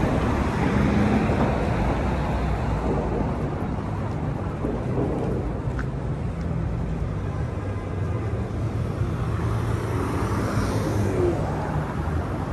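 City street traffic noise: a steady low rumble of passing vehicles and urban background, heard while walking.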